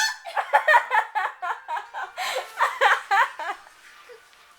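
A girl's voice in a quick run of short, high-pitched squeals, about a dozen in three and a half seconds, stopping about a second before the end.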